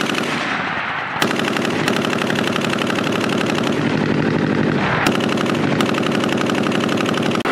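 Turret-mounted machine gun of a BTR armoured personnel carrier firing rapid, continuous automatic fire, a steady stream of shots.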